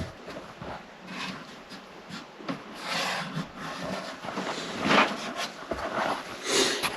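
Wooden bed-slat pieces being handled and clamped during a glue-up: irregular rubbing and scraping of wood, with a sharp knock at the start.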